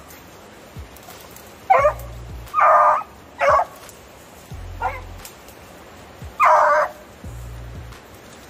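American Foxhound baying on the hunt: about five loud bays, two of them drawn out, the hound giving voice as it works the trail of game.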